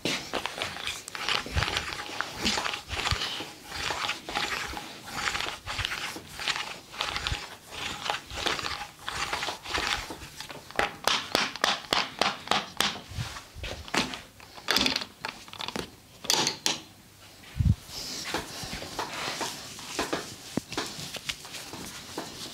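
Massage sounds of hands working on skin: a long run of brisk rubbing strokes and slaps, quickest and loudest around the middle, with one dull thump about three-quarters of the way through.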